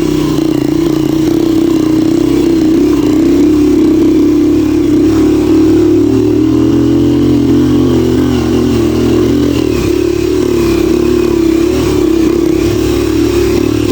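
Motorcycle engine running steadily while being ridden, its pitch wavering slightly with the throttle.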